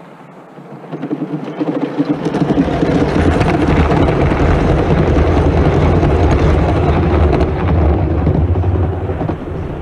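A Gauge 1 model train of long bogie coaches rolling past close by: a steady rumble of wheels on the track. It builds about a second in and fades near the end.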